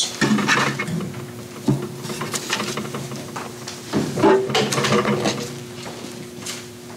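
Rustling and light clicks of a small notebook, its pages and a pen being handled at a music stand, over a steady low hum.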